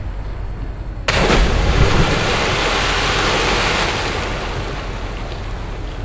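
A person plunging feet-first into a lake: a sudden loud splash about a second in, followed by a rushing hiss of churned water that slowly fades.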